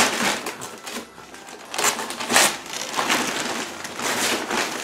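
Christmas wrapping paper being pulled off and crumpled by hand: a series of rustling, crackling swishes, the loudest about two and a half seconds in.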